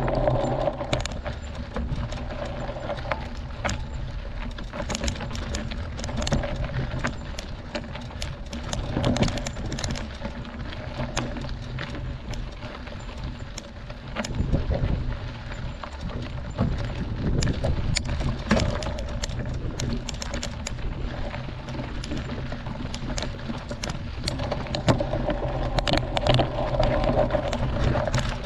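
Mountain bike rolling over a rocky gravel road: tyres crunching on loose stones and the bike rattling with many small knocks over bumps, with a low rumble of wind on the camera microphone.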